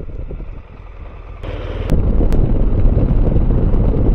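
BMW R1200R boxer-twin motorcycle pulling away and accelerating, with wind noise on a helmet-mounted microphone. The sound is fairly quiet at first, then swells sharply about two seconds in and stays loud, with two sharp clicks near the rise.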